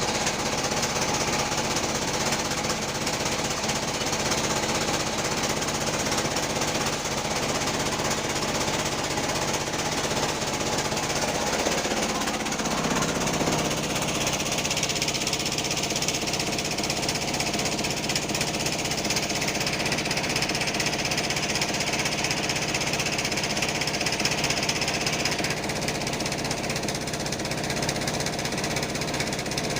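Type 36 band saw running as it cuts through a teak log, a steady machine din with a hum that shifts in pitch about twelve seconds in and a change in the hiss about twenty-five seconds in.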